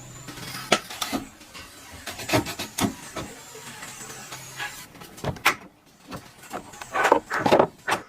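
Scattered knocks and clicks at uneven intervals, with a quick run of louder knocks near the end.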